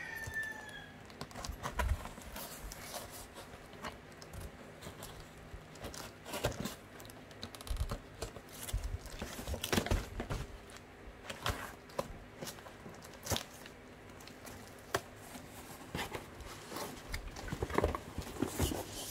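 Cardboard parcels and plastic wrapping being handled and shifted about inside a large cardboard box: irregular rustles, scrapes and light knocks.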